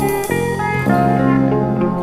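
Instrumental music led by a plucked guitar, held chords changing every second or so.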